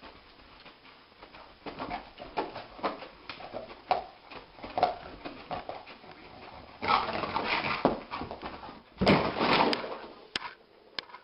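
A dog dreaming in its sleep: a run of short, muffled yips and whimpers, then two louder, longer stretches of noise as it kicks and scrambles up onto its feet.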